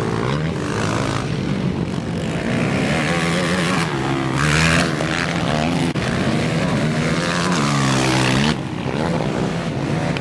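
Several racing quad bikes' engines revving up and down together as the quads pass through a turn, with overlapping pitches that rise and fall. The loudest burst of revving comes about halfway through, and one engine's pitch slides down and drops away near the end.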